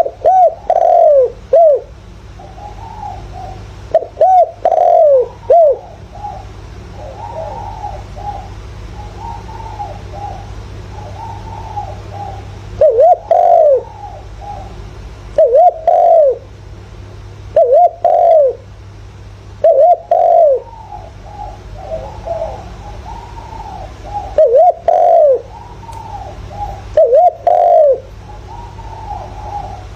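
Spotted dove cooing: loud coo phrases of a few curved, falling notes, repeated every two to three seconds, with softer cooing in between and a steady low hum underneath.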